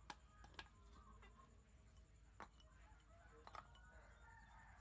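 Near silence, with a few faint, brief clicks.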